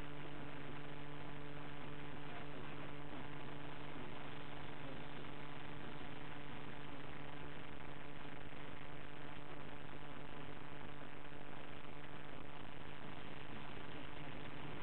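Steady electrical mains hum over a constant hiss, with no distinct events: noise in the audio feed.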